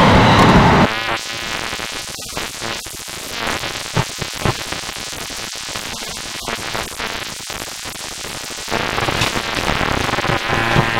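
Experimental electronic noise music. A dense wall of noise drops abruptly about a second in to a thinner electronic texture with scattered clicks, then swells louder again near the end.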